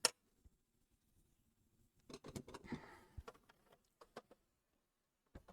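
Handling noises from a Commodore 64's plastic case: a sharp click at the start, then a flurry of short clicks and knocks about two seconds in, with a few scattered ticks after.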